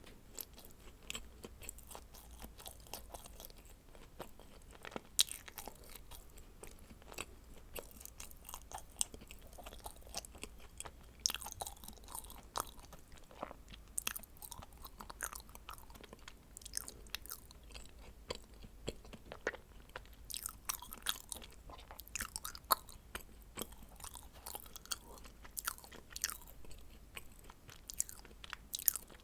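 Close-miked chewing of dacquoise: many small, irregular crisp crackles and clicks as the meringue-almond shells and cream filling are chewed.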